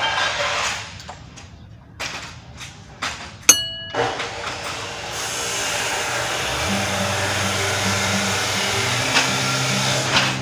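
A power tool starts about four seconds in and runs with a steady, even hiss, over background music. Just before it there is a sharp metallic clink.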